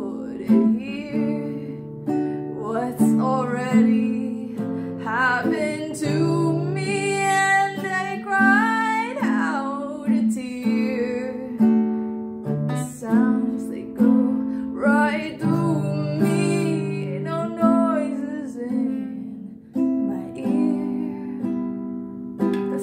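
Acoustic guitar strummed and picked in a steady accompaniment, with a woman's voice singing over it at times.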